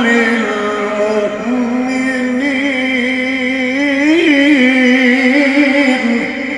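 A man's voice chanting Quran recitation (tajweed) and holding one long drawn-out melodic note, with a brief ornamented rise and fall about four seconds in. The note ends shortly before the close and the sound dies away slowly.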